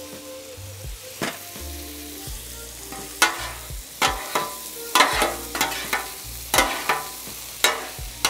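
Metal spatulas scraping and clacking against a steel flat-top griddle, with about nine sharp strikes, most of them in the second half, over the steady sizzle of shrimp and diced vegetables frying in butter.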